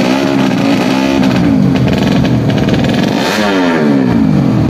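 Tuned four-stroke underbone (bebek) drag-bike engine being revved, its pitch swinging up and down, with one sharp climb about three seconds in that falls away again.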